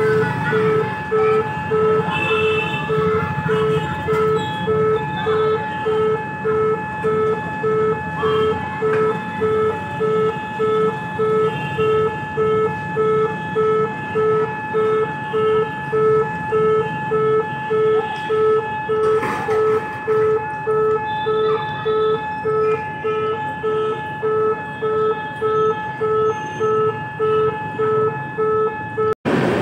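Railway level-crossing warning alarm sounding a repeating electronic tone, about one and a half pulses a second, over fainter steady higher tones and a low background rumble of traffic.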